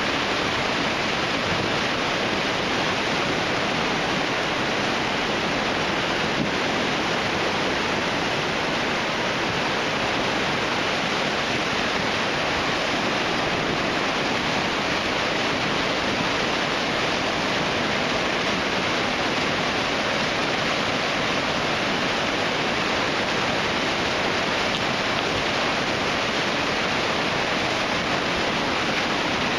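Flash flood: a swollen creek of muddy brown water rushing and churning through its bed, a loud steady rush with no breaks.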